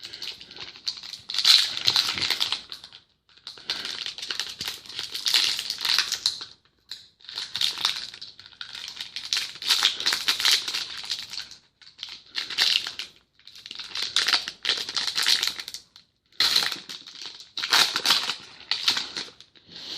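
Crinkling of a trading-card pack's plastic foil wrapper being torn open and handled. It comes in repeated stretches of a second or two with short pauses.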